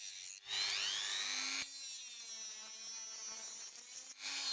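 Handheld rotary tool with a small cutting disc spinning at high speed and cutting into a phone's circuit board: a high whine that wavers in pitch, with brief breaks about half a second in and near the end.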